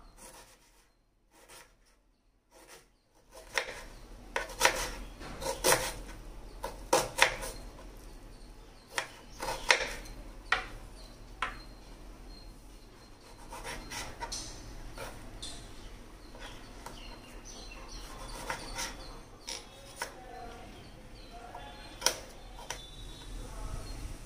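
Kitchen knife cutting onion and tomato on a cutting board: irregular taps and scrapes of the blade, starting a few seconds in, over a low steady hum.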